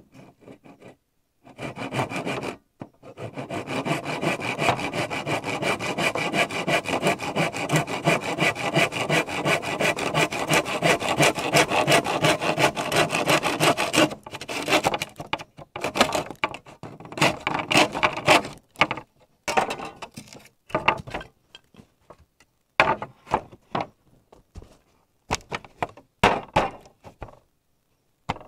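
Hand saw cutting through bamboo in fast, even back-and-forth strokes, running steadily for about twelve seconds, then a few shorter bursts of sawing with pauses between them.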